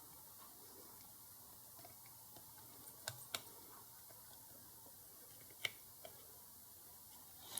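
A few sharp, small clicks of a screwdriver tip prying at a surface-mount capacitor on a circuit board: two about three seconds in, a louder one near six seconds, and another near the end, against near silence.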